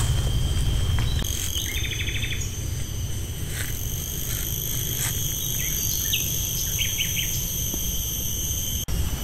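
Outdoor ambience of insects droning in steady high-pitched tones, with short bird chirps about two seconds in and again near seven seconds, over a steady low rumble.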